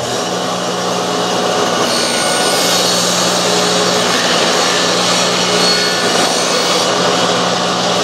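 Table saw running with a steady motor hum while a batch of small wooden blocks is fed through the blade with a push stick, the blade rasping through the wood as it cuts a slot in each block, the cutting noise strongest in the middle of the pass.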